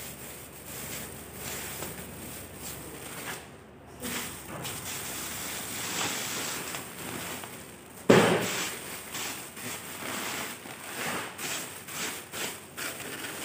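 Plastic shopping bags crinkling and rustling as groceries are handled, with a sudden louder burst of crackling about eight seconds in.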